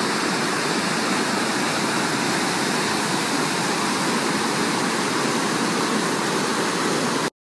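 Waterfall of white water cascading over rocks: a steady, loud rush that cuts off suddenly near the end.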